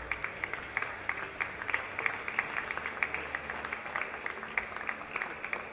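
Applause: many people clapping, a dense run of sharp hand claps that keeps going at an even strength.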